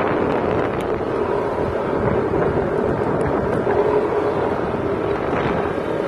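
A motorcycle's engine running steadily while riding, with wind rushing over the microphone.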